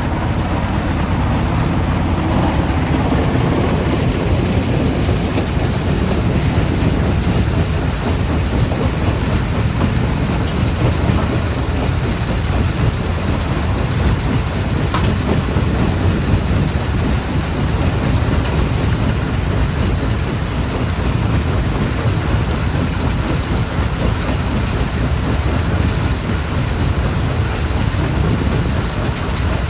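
Stone crusher plant machinery running continuously: a loud, steady heavy rumble with dense rattling of rock and metal.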